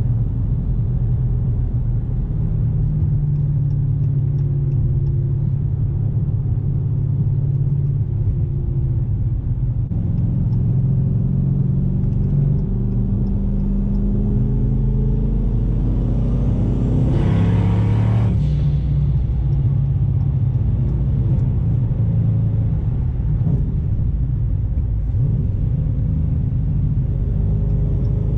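Twin-turbo Dodge Challenger Hellcat's 6.2-litre V8 droning steadily at highway cruising speed, heard from inside the cabin. A little past halfway the engine pitch climbs and a rushing whoosh builds, then drops away.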